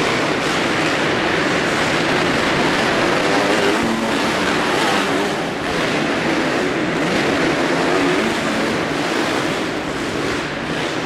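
Several motocross bikes racing round an indoor dirt track, their engines revving up and down as they ride, heard inside the arena hall.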